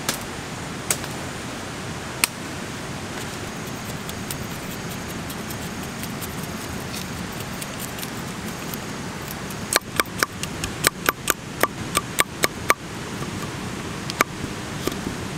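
A large hand-crafted knife chopping and shaving green wood and bamboo: a few single sharp strikes, then a quick run of about a dozen chops, roughly four a second, about ten seconds in, and one more strike near the end, over a steady outdoor hiss.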